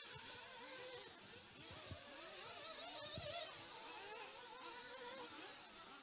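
Faint buzzing of several 1:8 scale off-road RC buggies' motors racing around a dirt track, their pitch rising and falling as they accelerate and brake. A few dull thumps sound along with it.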